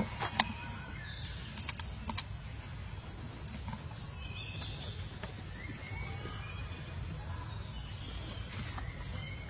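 Forest ambience: a steady high insect drone with a few short bird chirps over a low rumble, and several sharp clicks in the first two seconds, the loudest about half a second in.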